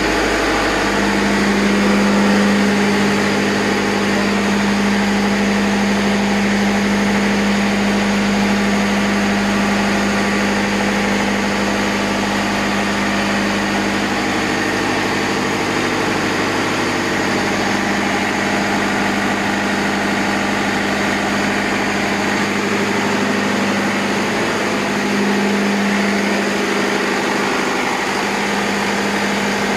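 Diesel machinery running steadily in a ship's engine room: a loud, even drone with a strong low hum.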